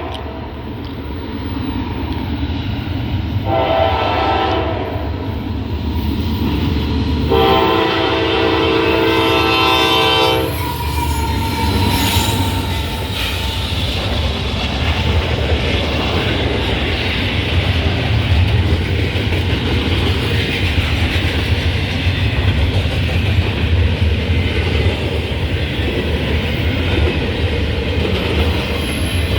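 Train led by a rebuilt diesel locomotive sounding its horn, a shorter blast and then a longer one, then passing close by with a steady rumble and clickety-clack of wheels over the rail joints.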